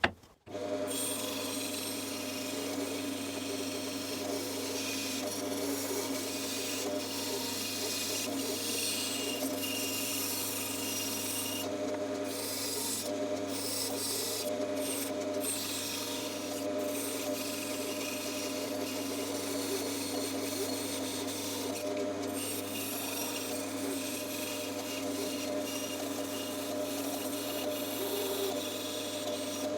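Bandsaw running and cutting wood: a steady motor hum under the hiss of the blade in the cut. The cutting hiss drops out for brief moments a few times.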